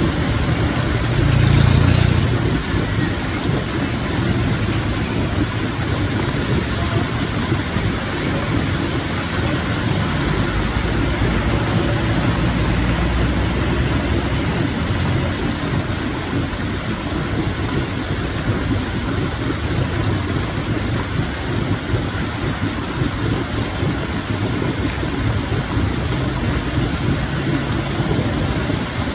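Rainwater gushing from a drain pipe outlet and splashing onto wet concrete, a steady rushing splash, with heavy rain falling around it. A brief low rumble swells about a second and a half in.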